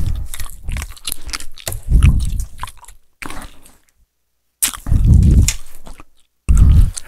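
A man chewing gum close to a headset microphone: clicks and wet smacks, with several dull low thumps on the mic.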